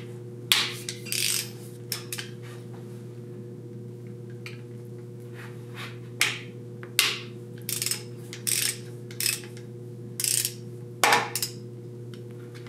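Ratchet wrench on a socket extension working a bolt on the cylinder head of a John Deere 755's diesel engine: a series of short ratchet clicks and metal clinks, spaced irregularly. A steady low hum runs underneath.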